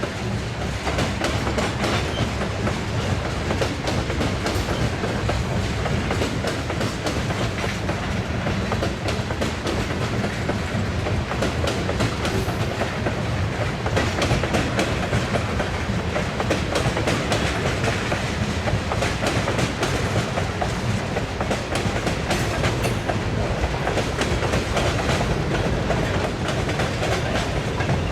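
Freight train cars rolling past, wheels clicking steadily over the rail joints with a continuous rumble.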